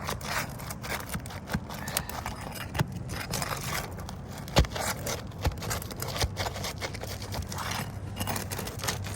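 Snake bar working under an asphalt roof shingle to pry it and its nails loose: gritty scraping and small clicks, with scattered sharp knocks, the loudest about four and a half seconds in.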